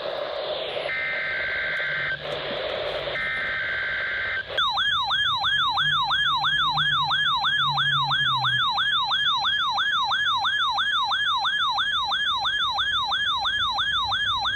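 NOAA weather radio alert: two short bursts of warbly digital data tones over radio static, then about four and a half seconds in a loud electronic siren alarm that sweeps up and down about two and a half times a second.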